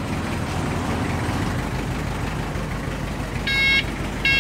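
Kia engine of a modified small truck idling steadily. About three and a half seconds in, an electronic beeper starts up, giving two short beeps about three-quarters of a second apart.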